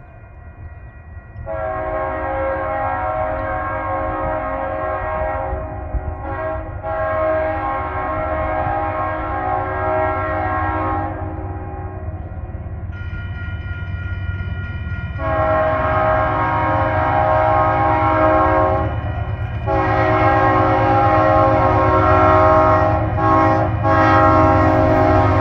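Air horn of an approaching Union Pacific locomotive, several notes sounding together, blown in a series of long blasts with a short blast about six seconds in. A low rumble runs underneath and grows louder as the train nears.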